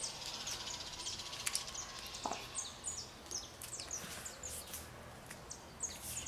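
Small birds chirping in the background, a steady stream of short, high, falling chirps, with a few faint clicks and a soft knock about two seconds in.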